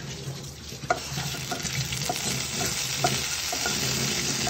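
Cumin seeds sizzling in hot oil in a nonstick frying pan, getting louder as they roast. A wooden spatula stirs them, its strokes clicking about twice a second.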